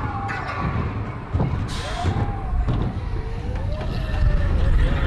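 Roller coaster train running along its track: a steady low rumble with wavering squeals over it, a short hiss about a second and a half in, growing louder toward the end.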